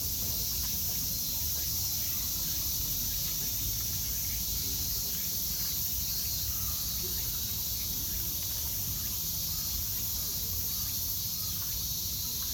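Steady high-pitched drone of a cicada chorus, unbroken throughout, over a low steady rumble of background noise.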